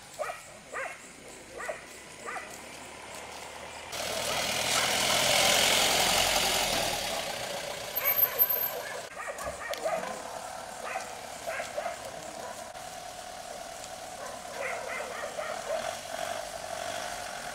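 A motor vehicle drives past on the road, its noise building about four seconds in and fading away over the next few seconds. A few short sharp sounds come before and after it, and a steady drone runs under the later part.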